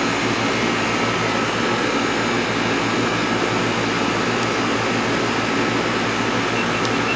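2011 Goodman central air conditioner's outdoor condensing unit running steadily in its first minutes of the cooling season: a steady low hum with an even rush of air from the condenser fan.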